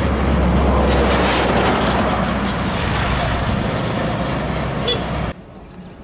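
Heavy trucks and a bus passing close in slow traffic: engines running with a deep steady drone over road noise. It cuts off abruptly about five seconds in.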